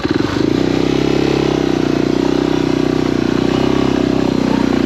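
Suzuki DR650's single-cylinder four-stroke engine picking up from a slow, chugging beat to a louder, steady pull under throttle, held there.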